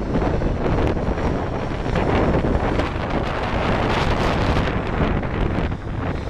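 Strong wind buffeting the microphone: a loud, uneven rushing with heavy low rumble, hissier for a stretch in the middle.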